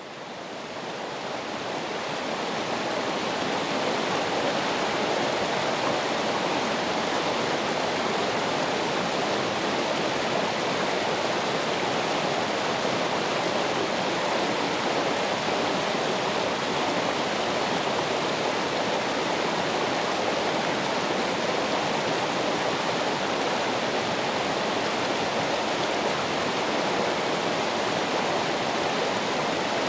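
Running water, a steady, even rushing like a stream or small waterfall, fading in over the first few seconds.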